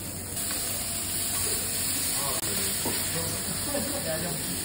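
Shiretoko beef steaks, potato slices and shiitake mushrooms sizzling on a hot teppanyaki iron griddle as they sear. The sizzle grows louder and brighter about half a second in.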